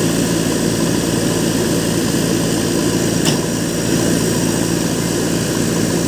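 JCB backhoe loader's diesel engine running steadily close by, with a single short click about three seconds in.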